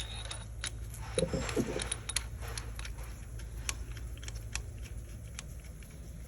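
Scattered light metallic clicks and clinks of hand tools and parts as a timing-chain sprocket and its bolt are fitted, left loose.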